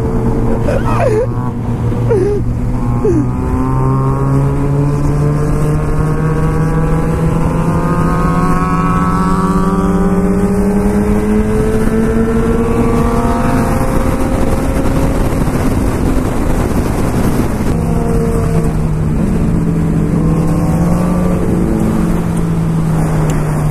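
Suzuki GSX-R sport bike's inline-four engine under way at highway speed, its pitch climbing slowly as it pulls for about the first half, then settling lower and steady. Wind rushes over the microphone throughout.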